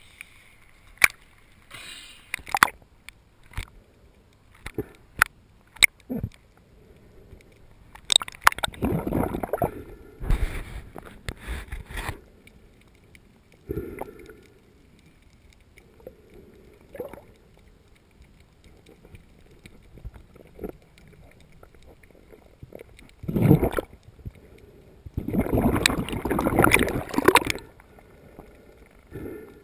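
Water sloshing and gurgling around an action camera's waterproof housing at and below the surface, with sharp clicks in the first few seconds and several louder spells of churning water later.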